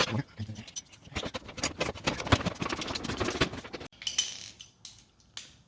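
Irregular light clicks and rattles of plastic car body trim being handled and pulled apart at the bumper-to-fender joint, with a brief high squeak a little after four seconds.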